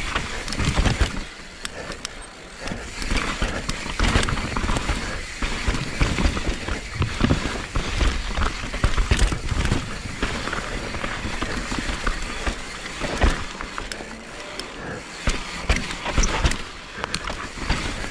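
Mountain bike riding fast down a rough dirt trail: continuous tyre and ride noise, with many sharp knocks and rattles from the bike over roots and bumps.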